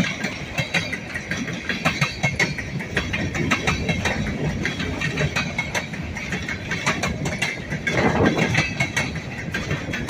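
Freight train of covered hopper cars rolling past, steel wheels clicking and clacking over the rail joints over a continuous rumble. The knocking is louder about eight seconds in.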